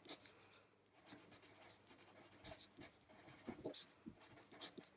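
Pencil writing on paper: faint, irregular scratching strokes of handwriting.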